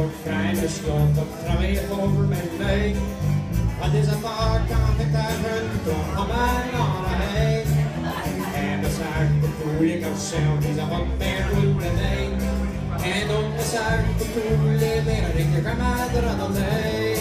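Live instrumental break of a country-folk song: acoustic guitars strumming and picking over a bass guitar's steady bass line, with no singing.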